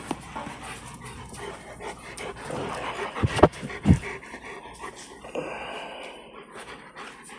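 A dog panting close by, with a few bumps and knocks about three to four seconds in.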